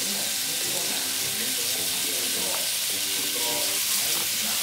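Pork slices sizzling steadily in a hot frying pan, stirred and turned with tongs.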